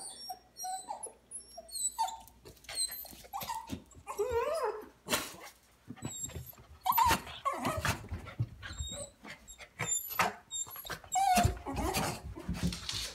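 Coton de Tulear whining and whimpering in excitement over treats: short, high cries that bend up and down, with clicks and knocks between them.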